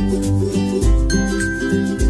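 Background music: a melody of short pitched notes over a deep bass note that returns about every second.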